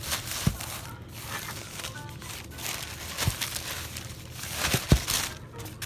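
A cardboard shoe box being opened and its paper wrapping rustled and crinkled, with a few dull thumps as the box is handled.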